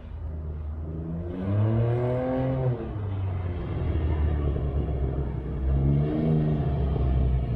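Can-Am Ryker three-wheeler engine revving. Its pitch rises and falls back about a second and a half in, again near six seconds, and climbs once more at the end.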